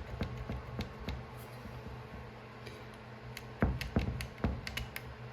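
Light metallic clicks and taps from a small file working between a chainsaw's ignition breaker points, with three sharper clicks about three and a half to four and a half seconds in.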